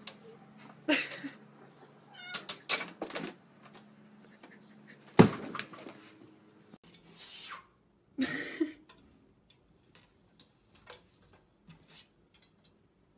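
A cat meowing several times in short calls, with a sharp knock about five seconds in and a few faint clicks later on.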